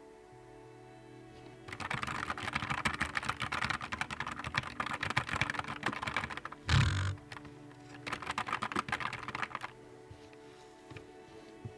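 Fast typing on a Nuphy Air 75 V2 low-profile mechanical keyboard: a rapid run of key clicks for about five seconds, one louder thump, then a second shorter run of typing and a few scattered keystrokes near the end.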